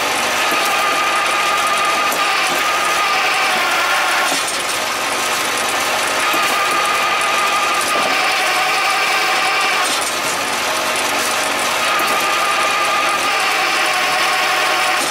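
Krpan vertical hydraulic log splitter running under load, with a steady mechanical whine that changes pitch and tone every few seconds as the ram is worked through a log.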